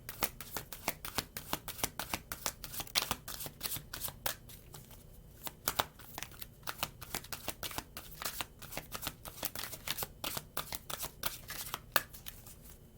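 A deck of cards being shuffled by hand: a rapid, uneven run of light snapping clicks, with a short pause about five seconds in and another near the end.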